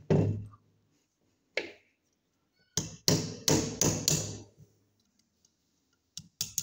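Metal clicks, taps and knocks of pliers working on a 30-bore (7.62×25 mm) pistol as it is taken apart. There is a knock at the start, a quick run of sharp clicks about three to four and a half seconds in, and two more clicks near the end.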